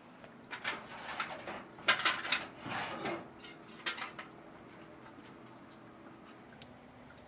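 Metal bucket being handled: its wire handle rattles and the pail knocks and clanks several times, loudest about two seconds in, then a single light click near the end.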